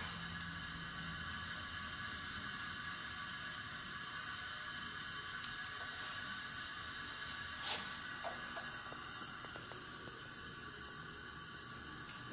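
Steady hiss of compressed air fed into a Pontiac 400 V8's cylinder, escaping past the piston rings through the ring gaps: a little hiss that is normal, on rings that are already sealing well. One light metallic click about two-thirds of the way through.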